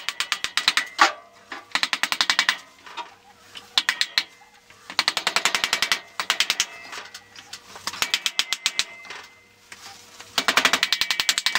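A hammer tapping the greased rear axle of a KTM 250 dirt bike, driving it through the wheel hub and swingarm. The taps come in quick runs of about ten a second, each run lasting about a second, six or seven runs with short pauses between.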